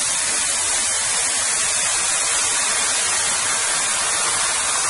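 Beer poured onto chicken frying in a hot disco pan, sizzling in a steady hiss as it boils off in steam. The beer is added because the chicken is running short of juice.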